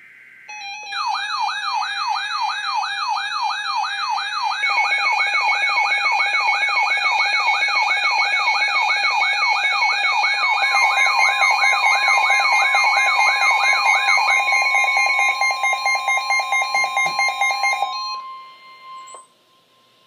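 Several NOAA weather radios sounding their alert alarms at once for a Winter Storm Warning: a fast warbling siren tone rising and falling about twice a second, layered with steady beeping tones. About halfway through, a steady single tone joins, the broadcast's 1050 Hz warning alarm tone. Most of the radio alarms cut off near the end, leaving that tone alone.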